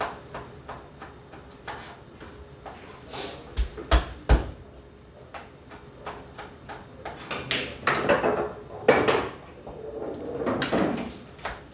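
Sharp knocks and clicks of balls and cue around a small pool table: two loud knocks close together about four seconds in, with lighter clicks and handling noise through the rest.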